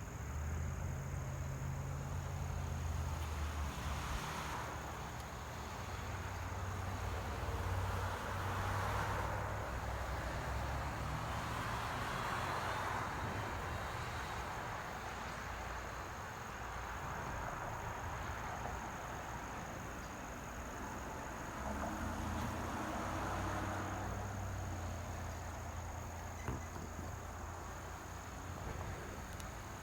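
Crickets trilling steadily over a low engine-like hum that shifts in pitch now and then.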